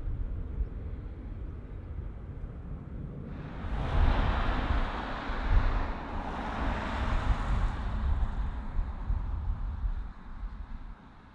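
Jet airliner engine noise with wind rumbling on the microphone; a louder rushing roar comes in about three and a half seconds in and eases off after about eight seconds.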